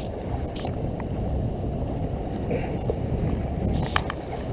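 Steady wind rumble on the microphone over the wash of water against the rocks, with a few faint clicks about a second in and near the end.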